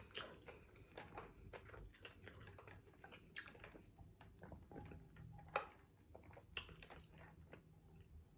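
Faint mouth sounds of sipping a drink through a straw, with scattered soft clicks, the loudest a little past halfway.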